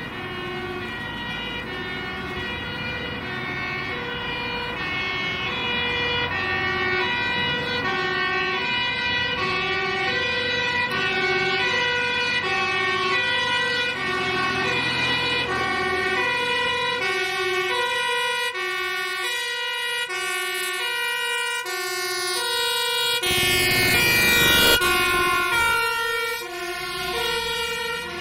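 Fire engine's two-tone siren alternating steadily between a high and a low note, growing louder as the truck approaches. About 23 seconds in it passes close, with a loud rush of engine and road noise and the siren's pitch sliding, then it carries on a little quieter.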